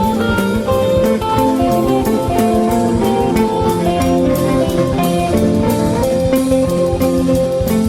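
Music with guitar over a steady drum-kit beat.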